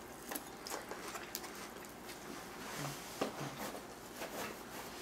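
Faint, irregular clicks and crackles, with a couple of brief low hums about three seconds in.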